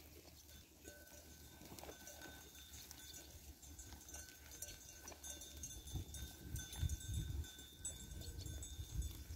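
A flock of sheep grazing on dry stubble: faint clicks of grass being cropped and hooves shifting, under a faint steady high tone. Low rumbling gusts come in from about six seconds in.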